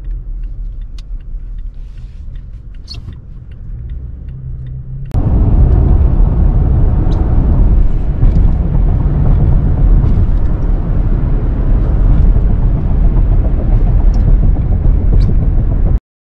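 Vehicle driving on a road, heard from inside the cab: a low steady rumble with faint ticks and rattles. About five seconds in it turns suddenly into a much louder steady rush of road and wind noise, which cuts off abruptly near the end.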